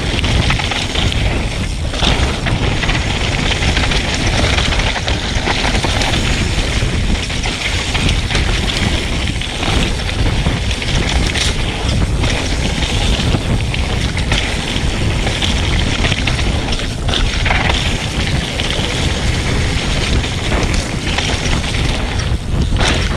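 Mountain bike riding down a dirt trail: tyres rolling over dirt and rock, the bike rattling and knocking over bumps, with heavy wind rush on the microphone.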